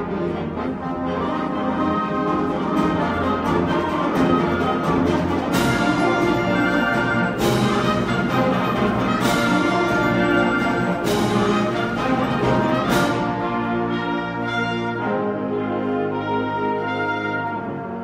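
High school concert band playing, with brass to the fore. Five ringing crashes about two seconds apart mark the middle of the passage, and the band then thins to quieter held notes near the end.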